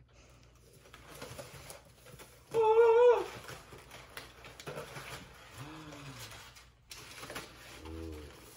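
Crumpled kraft packing paper rustling as it is pulled out of a cardboard shipping box. About two and a half seconds in, a high, wavering excited vocal squeal is the loudest sound, and a lower short voiced exclamation comes near the middle.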